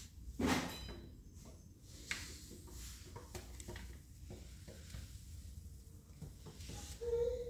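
Light taps, clicks and scrapes on a glass tabletop as an African grey parrot plays with a person's hand, its beak and claws against the glass, with one louder short noisy burst about half a second in.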